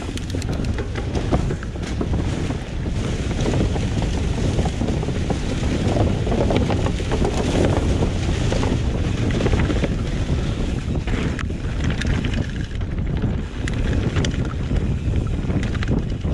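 Steady rushing noise, with wind buffeting the microphone.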